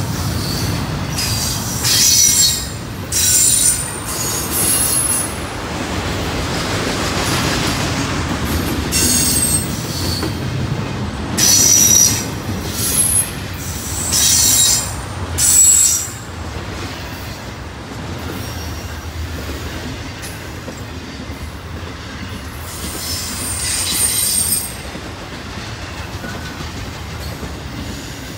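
Train rolling past, its rail cars giving a steady rumble and clatter. High, sharp wheel squeals come in short bursts every second or two through the first half, then the rumble carries on with one more squeal later.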